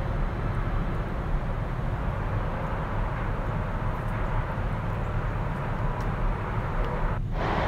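Steady outdoor background noise: a low rumble under a faint hiss, dropping out for a moment near the end.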